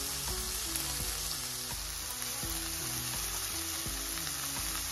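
Onions, green beans and broccoli frying in oil in a nonstick pan, with a steady sizzle as the vegetables cook through. Soft background music plays under it.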